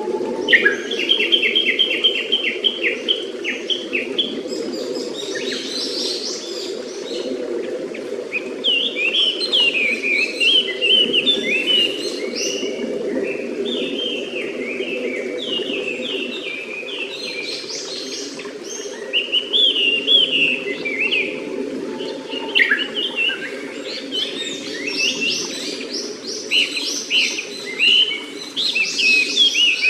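Birds calling in quick, varied phrases over the steady rush of a clear stream; the birdsong includes Japanese paradise flycatcher calls. A run of rapid repeated notes comes in the first few seconds.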